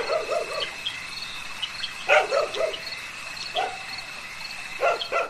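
Insects trilling steadily, with several short runs of animal calls, some in quick groups of three, breaking in at the start, about two seconds in, about three and a half seconds in, and near the end.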